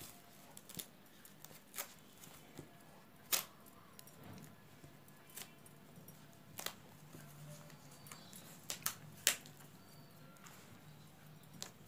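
Metal knitting needles clicking against each other as stitches are worked, about ten short, sharp clicks at irregular intervals.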